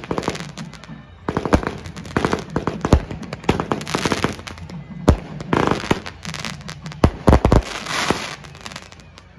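Firecrackers going off in irregular sharp bangs and crackling bursts.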